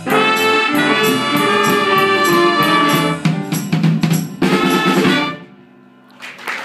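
Student jazz band with trumpets and drum kit playing the closing bars of a tune: a long held chord, then a last short phrase that ends on a final hit and cuts off about five seconds in. After a brief hush, applause starts near the end.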